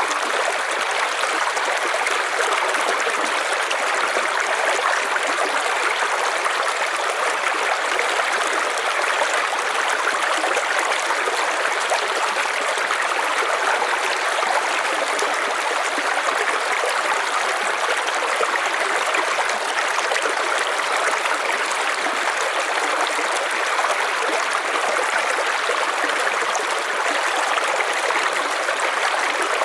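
River water flowing steadily over stones, a constant rushing with a trickling, gurgling edge.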